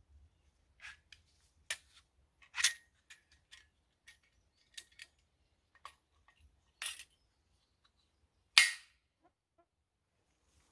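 A scattered series of sharp clicks and snaps at uneven intervals, the two loudest about two and a half seconds in and near the end.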